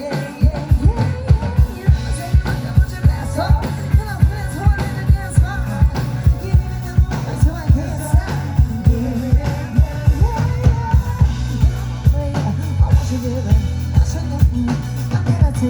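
Live rock band playing a song: drum kit with a steady kick-drum beat, bass and a singing voice.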